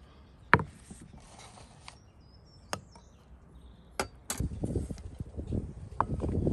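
Kitchenware clinking: a few sharp, separate clinks, then a denser, rougher clatter from a little past four seconds in.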